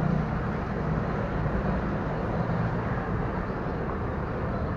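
Steady motor-vehicle noise, an even rush with a low hum underneath and no clear changes.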